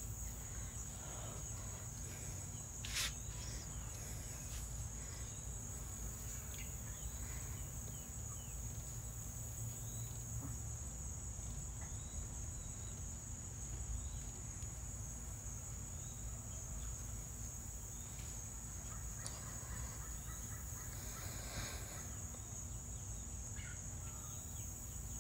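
A steady high-pitched insect chorus, with a low rumble underneath and a brief tick about three seconds in.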